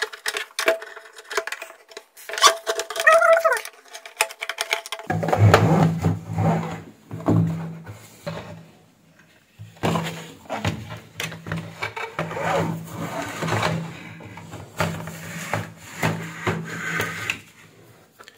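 Clicks, knocks and rattles of a plastic electronic weighing-scale housing being unscrewed and its top cover lifted off. A steady low hum starts suddenly about five seconds in, breaks off for a moment in the middle, and runs on until near the end.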